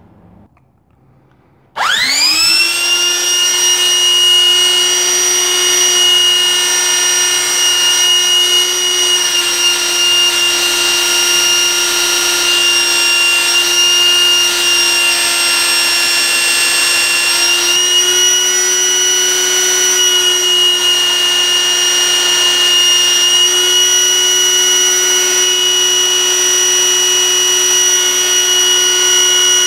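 Parkside PBS 600 A1 electric belt sander switched on about two seconds in. It spins up within a moment and then runs steadily with a loud high whine, test-running after its repair. Midway a knife blade is held against the moving belt, and the whine begins to wind down right at the end.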